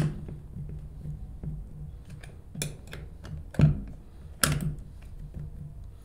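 Screwdriver tightening the small mounting screws of a micro switch in a plastic trolling motor foot pedal: light clicks and taps of the tool and housing, with a few sharper knocks about two and a half, three and a half and four and a half seconds in, the one at three and a half the loudest.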